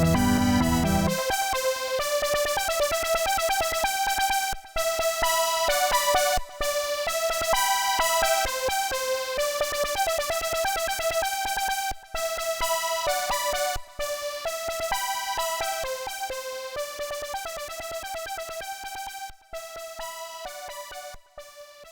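Synthesizer keyboard music: the bass drops out about a second in, leaving a melody of short keyboard notes that gradually fades out near the end.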